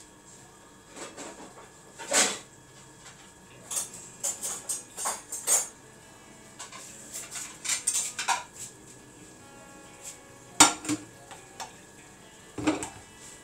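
Dishes, cutlery and pots being handled: irregular clinks and knocks, with a cluster of quick ones around the middle and the sharpest, loudest clank about ten and a half seconds in.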